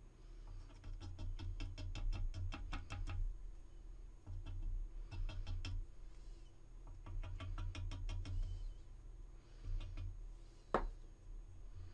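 A small paintbrush dabbing and scrubbing filler into a seam on a resin model, heard as three bursts of rapid fine ticks, several a second, with one sharp click near the end.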